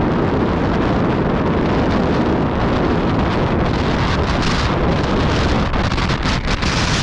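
Strong, blustery wind buffeting the microphone: a loud, steady wind noise.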